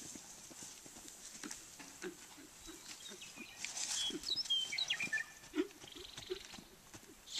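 Horse's hooves thudding softly on the dirt of a round pen as it trots around, an uneven run of dull footfalls.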